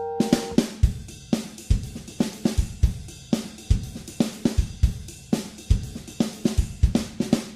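Background music: a held chord dies away, then a steady drum-kit beat of kick, snare and hi-hat strokes.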